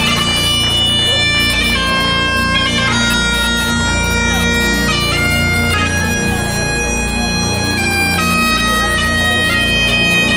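Bagpipes played through the stage PA: a slow melody of held notes over the steady drone.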